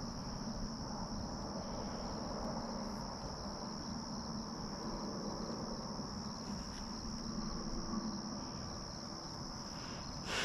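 Crickets chirring in an unbroken, steady high-pitched chorus, over a low background rumble.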